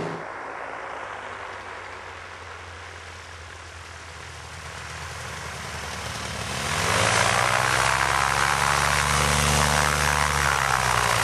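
Flex-wing ultralight trike's engine and propeller, faint and distant at first, then growing loud about six seconds in as the trike runs along the ground close by. Its pitch rises and then falls as it goes past.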